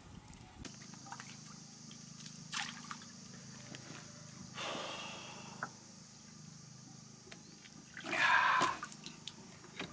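Water splashing and dripping around a large fish held at the surface and lifted out by a lip grip, with the loudest splash about eight seconds in. A low steady hum runs underneath.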